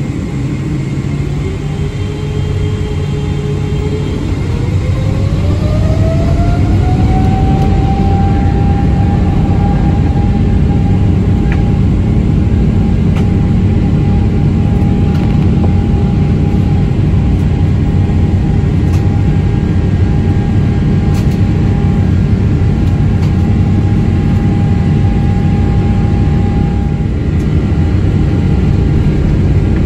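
Boeing 777-300ER's GE90 jet engines heard from the cabin, spooling up to high thrust. A whine climbs over about three seconds and then holds steady above a loud, continuous rumble that grows louder as the whine rises.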